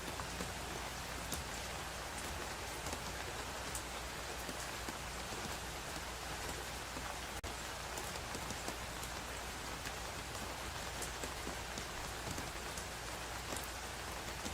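Steady rain falling, an even hiss with scattered small drop ticks, broken by a momentary dropout about halfway through.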